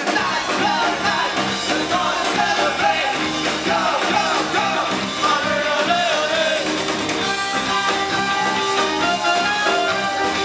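Live indie rock band playing: a voice singing over electric guitar and drums for the first half, giving way to sustained guitar chords from about seven seconds in.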